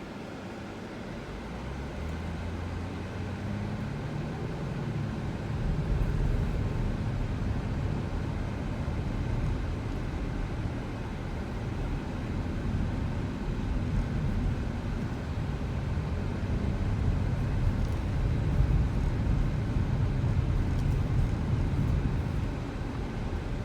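Car driving: the engine note rises as the car picks up speed over the first few seconds, then settles into a steady low rumble of engine and road noise.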